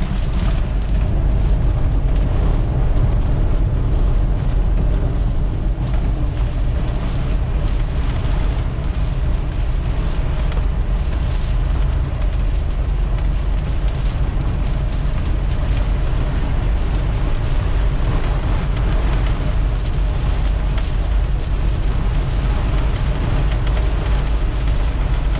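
Steady low rumble of road and engine noise from a vehicle driving along a highway, heard from inside the cabin.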